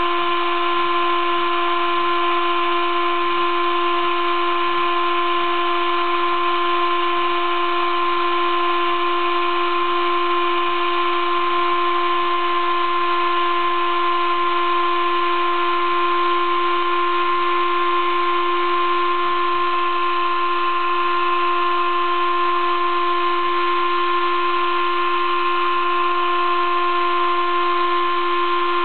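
Sable-2015 desktop CNC milling machine engraving letters into acrylic board with a 20-degree V engraving cutter, running with a steady high whine of several tones over a hiss. One of the middle tones drops out for a few seconds near the end.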